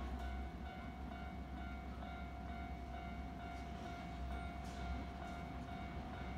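Japanese level-crossing warning bell ringing, a steady repeating electronic tone, as a train approaches, over a low rumble.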